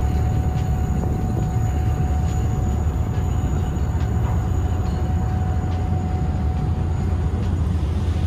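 Car ferry's engines rumbling steadily beneath the vehicle deck, with a faint steady whine that stops about seven seconds in.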